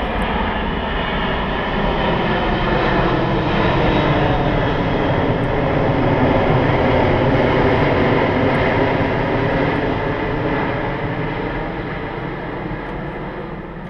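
Airbus A380's four jet engines as the airliner makes a low pass overhead. The engine noise, a broad rush with steady tones running through it, grows to its loudest about halfway through and then dies away as the aircraft moves off.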